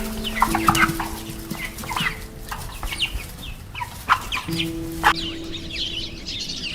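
Birds calling in short, repeated bursts over background music that holds long notes. Two sharp clicks come about four and five seconds in.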